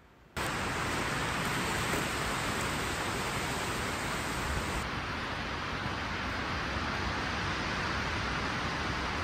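Strong wind rushing, a steady even noise that cuts in abruptly about a third of a second in and holds at one level.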